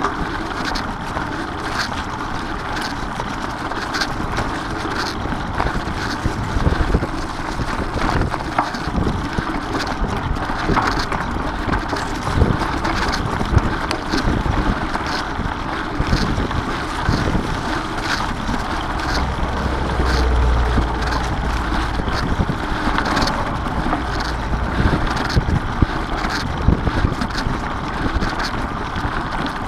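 Mountain bike rolling over grass and fallen leaves on singletrack: steady tyre noise and rattle from the bike, with light ticks about once a second and wind on the microphone, which gives a low rumble about two-thirds of the way through.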